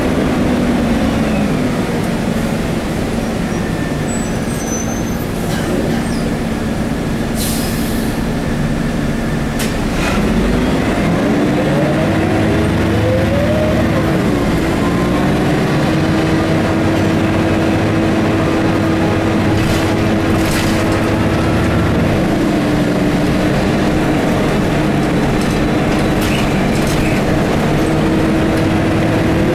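Scania L113CRB bus's rear-mounted 11-litre six-cylinder turbo CNG engine and ZF five-speed automatic gearbox, heard from inside the passenger cabin. The engine drones steadily, then from about ten seconds in its note rises as the bus accelerates, changes gear about fourteen seconds in, and settles into a higher steady drone. A few short rattling clicks come from the body.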